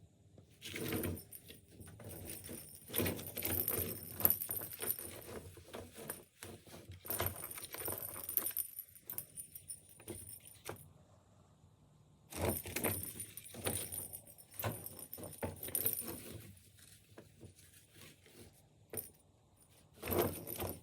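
Cat toy jingling and clattering in irregular bursts as a cat bats and rubs against it, with quiet pauses between the bouts of play.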